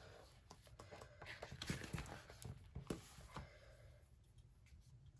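Faint paper rustling and soft taps as a sticker book is handled and its pages turned, quieter near the end.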